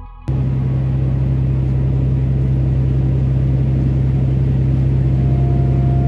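Steady low drone of a fishing boat's engine running underway, with a faint higher whine joining about five seconds in.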